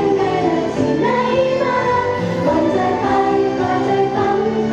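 Group of young women singing together live into handheld microphones over accompanying pop music, amplified through loudspeakers.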